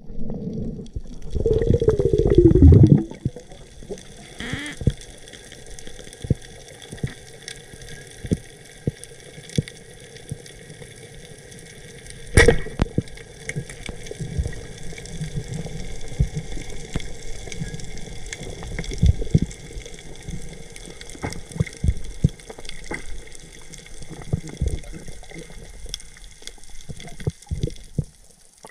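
Water gurgling and sloshing, loudest in a rush about a second in, followed by scattered sharp clicks and knocks over a steady hiss.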